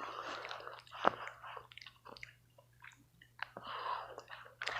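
A person chewing candy corn close to the microphone, in two spells of wet mouth noise with small clicks in between.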